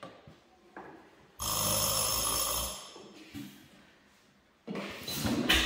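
Old hit-and-miss engine being turned over by hand to start it: a harsh, rasping rush lasting about a second and a half, and near the end a rougher, uneven rasping that builds.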